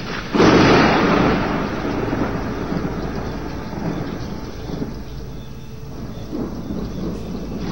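Thunder: a clap breaks about half a second in and rolls away in a long fading rumble, over rain.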